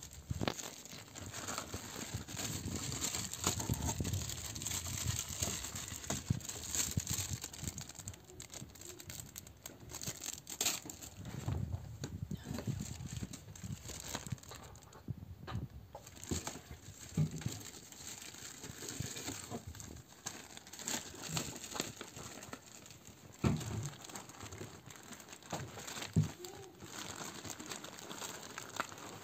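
Clear plastic packaging bag crinkling and rustling as it is handled and pulled out of a cardboard box, with a few sharp knocks against the box near the end.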